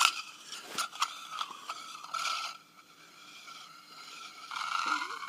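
A small mirror clicking and scraping against the cast-iron column way of a milling machine. There are a few sharp clicks in the first second, then short rubbing scrapes, with a longer one near the end.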